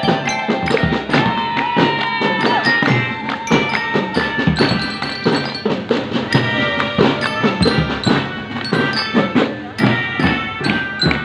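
Marching band playing: a steady beat of drum strikes with melodic instruments holding and moving between sustained notes over it.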